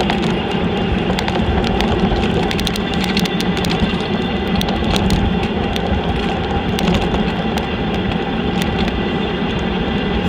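Steady road and engine noise inside a moving car's cabin, a low rumble with scattered light clicks and rattles.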